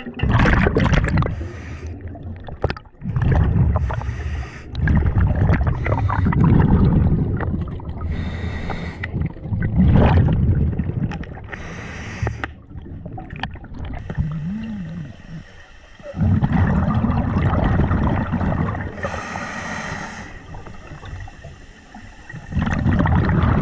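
Scuba diver breathing through a regulator underwater, heard from a mask-mounted camera: irregular rushing surges every few seconds and bubbly hissing bursts of exhaled air, all with a muffled underwater quality.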